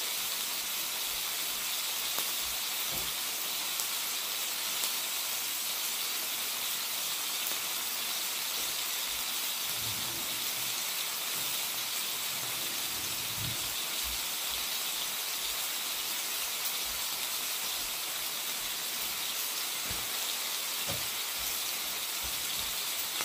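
Ribeye steak topped with compound butter sizzling on a hot griddle: a steady, even frying hiss.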